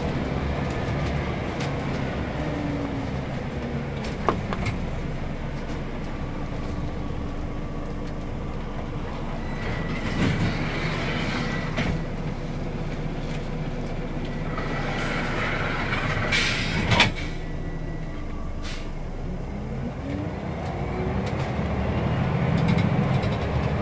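Inside a Scania L94UB city bus under way: its diesel engine and ZF automatic gearbox running, the pitch falling early on and rising again near the end as the bus changes speed and gears. A short sharp hiss comes about 17 seconds in.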